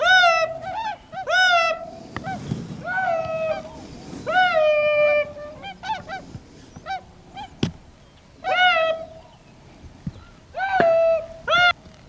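Geese honking: a series of loud honks, each pitched high and held briefly, mixed with short clipped clucks.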